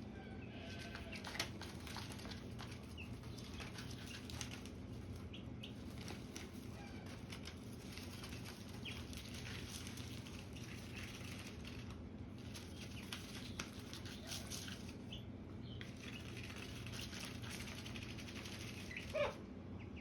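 Ducklings dabbling in a water dish for peas: scattered small splashes and bill clicks over a steady low hum, with a single loud duckling peep near the end.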